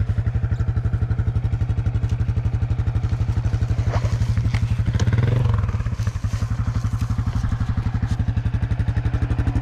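Dirt bike engine idling with a steady, fast putter, swelling briefly about five seconds in.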